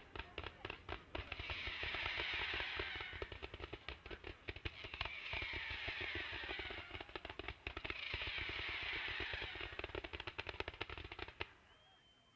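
Ground-fired fireworks going off in rapid volleys of small reports, like a string of firecrackers. Three stretches of dense hissing crackle come about two, five and eight seconds in, and the barrage stops suddenly near the end.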